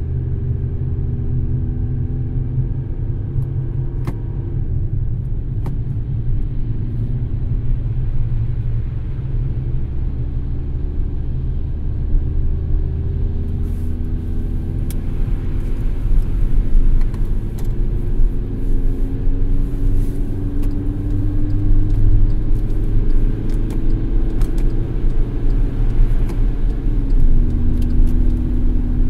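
Car driving along the road with a steady low rumble of engine and road noise. The engine tone climbs slowly and drops sharply near the end, as the revs change. A hiss joins about halfway through.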